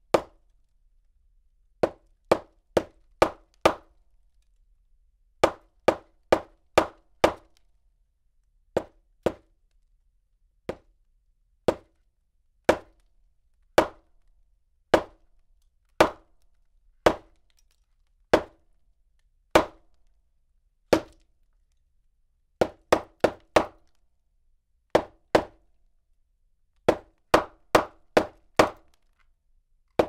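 Hammer striking wood at medium distance, a series of sharp knocks. It starts with two quick runs of about five blows, then single blows roughly a second apart, then quick runs of three to five blows again near the end.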